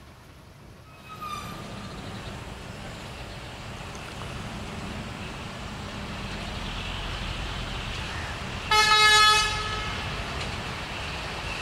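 Broad-gauge diesel locomotive approaching, its low engine rumble growing steadily louder. Near the end it gives one loud horn blast lasting about a second.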